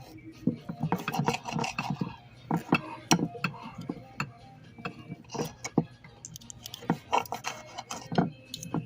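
Knife and fork scraping and clicking against a plate while a steak is cut, in an irregular run of sharp clicks and short rasps.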